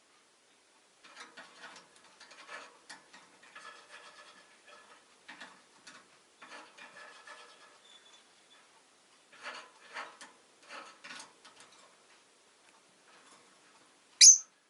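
Rosy-faced lovebird making quiet, irregular clicking and scratching sounds with faint soft chatter, then one short, sharp, high-pitched chirp near the end, much louder than the rest.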